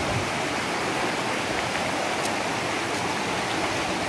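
Shallow, rocky mountain stream rushing over and between boulders: a steady rush of water.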